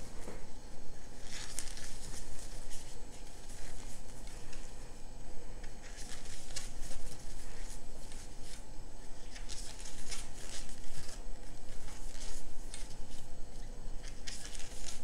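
Thick polyester cord rustling and scraping as a plastic crochet hook is pushed through the stitches and yarn is drawn through, in irregular bursts while single crochet stitches are worked along a row.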